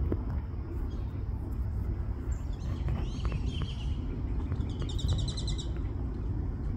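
Black-bellied whistling ducks calling to each other. Squealing, sliding whistles come about two and a half seconds in, then a quick run of high repeated whistled notes about a second later, over a steady low background rumble.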